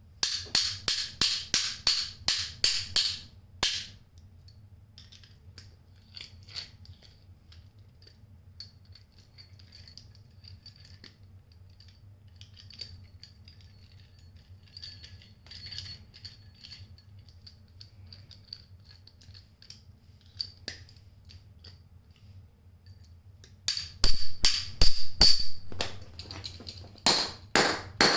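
Rapid hammer blows on a metal socket ratchet, about four ringing strikes a second, in a run of about four seconds at the start and another near the end, with faint clinks of handling between. The ratchet is being knocked apart to drive out its internal mechanism, which is broken and made it skip.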